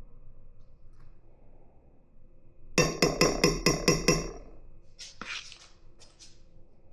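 Metal cutlery clinking rapidly against a dish, about seven ringing strikes a second for over a second, followed by a couple of short scrapes.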